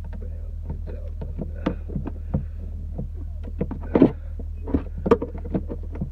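Irregular clicks and knocks of hands working plastic wiring connectors and a car fuse box loose, the loudest knock about four seconds in, over a steady low rumble.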